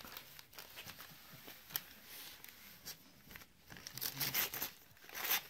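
A small dog tearing and rustling Christmas wrapping paper with its teeth: scattered short rips and crinkles, busier and louder in the last second and a half.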